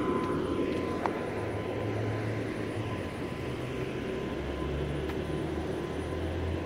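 A motor vehicle's engine running with a low steady hum over outdoor traffic noise; the hum shifts lower and grows a little stronger past the middle.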